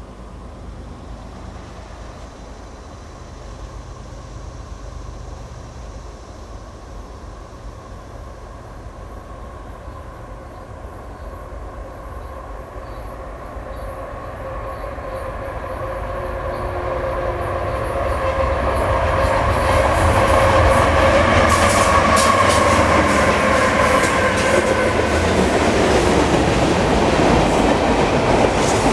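A fast CSX freight train led by two GE ES44AC diesel locomotives approaches, growing steadily louder for about twenty seconds, then passes close by with a loud rush of clattering wheels over the rail joints and some wheel squeal from the cars.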